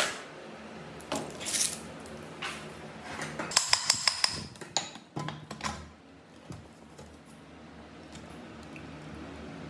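Hammer tapping on a cut-off saw's metal motor housing to knock the stator loose, with a quick run of sharp metallic taps about three and a half seconds in and scattered knocks and clinks either side. The taps stop after about six seconds.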